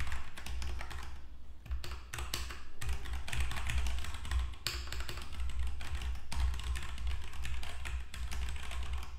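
Rapid, irregular clicking of a computer keyboard being typed on, with dull low thuds underneath.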